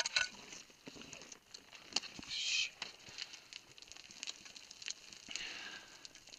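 Boots and hands scuffing and scraping on loose dirt and scree during a downclimb, with many small clicks of stones and a short rushing scrape of sliding grit about two and a half seconds in.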